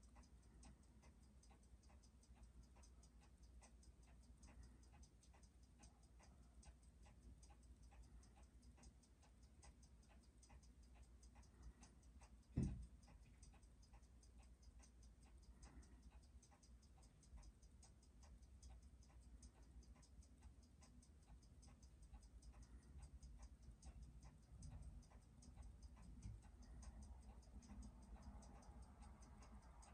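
Seiko 6309 automatic watch movement ticking faintly and evenly, six beats a second, running in beat on a timegrapher stand. One dull thump about halfway through.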